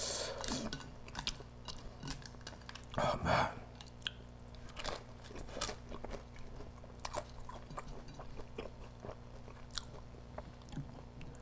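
Close-miked chewing and mouth sounds of a person eating naan soaked in curry sauce, with scattered small clicks and a louder cluster about three seconds in.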